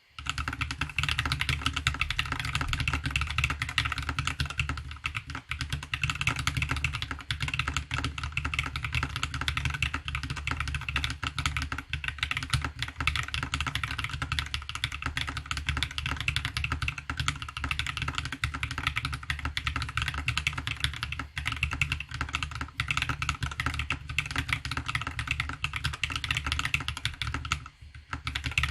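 Continuous fast typing on a CSTC40 mechanical keyboard with POM keycaps, lubed BSUN Akashi switches and a polycarbonate plate: a dense, steady run of key clacks, with a brief pause near the end.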